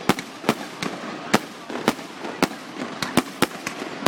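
Fireworks display: about ten sharp bangs of shells bursting at irregular intervals, a few a second, over a continuous background noise.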